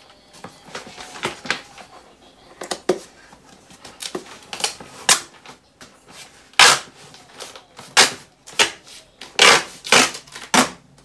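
Brown duct tape being pulled off the roll and pressed down to seal a cardboard box: a string of short ripping pulls, sparse at first, then quicker and louder in the second half.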